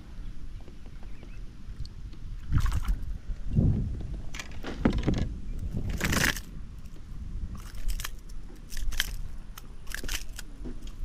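Water splashing and sloshing in several separate bursts over a steady low rumble.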